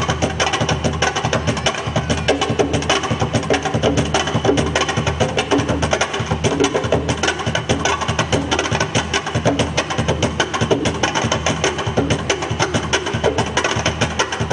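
Afro-Peruvian festejo music with fast, driving percussion: a dense run of quick, sharp strokes over a steady low bass.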